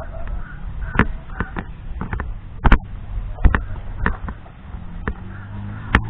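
Irregular knocks and thumps, one roughly every half second to a second, from a GoPro being jolted as it is carried on foot, over a low rumble of background noise.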